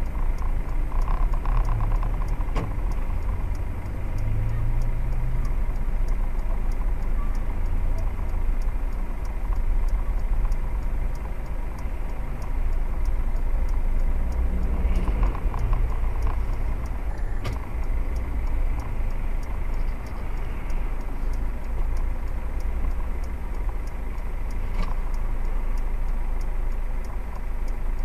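Steady low engine rumble heard from inside a stationary vehicle's cab, picked up by a dashcam.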